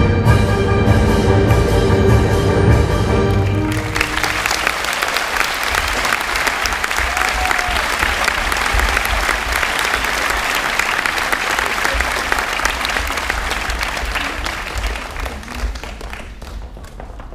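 Orchestral music ends on a held chord about four seconds in. Audience applause follows and gradually fades away near the end.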